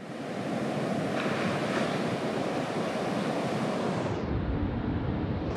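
Heavy hurricane surf breaking and washing, a steady rush of ocean noise that turns duller and deeper after about four seconds.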